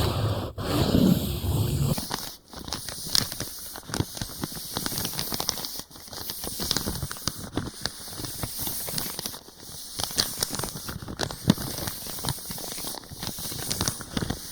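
Close-miked ASMR ear-massage sounds: hands rubbing against the microphone, a low muffled rub at first, then about two seconds in, dense irregular crackling and rustling.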